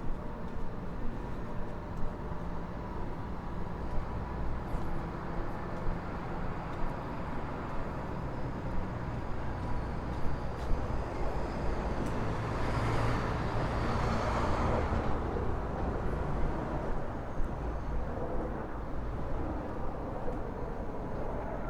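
Street traffic: a low engine hum runs steadily, and a vehicle passes by, loudest a little past the middle.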